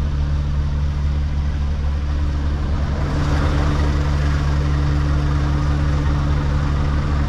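Scania S770's 16.4-litre V8 diesel idling steadily. About three seconds in, a louder hiss joins it.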